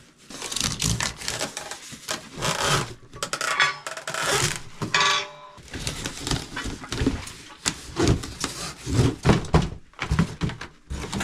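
Cardboard packaging rubbing and scraping while a heavy manual hydraulic log splitter is worked out of its box, with a series of irregular thunks and knocks.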